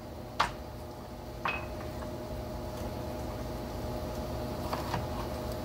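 A steady appliance hum fills the kitchen. Over it come a sharp knock and then a short clink with a brief ring, as a knife and a lime are handled on a wooden cutting board, and a few faint ticks near the end.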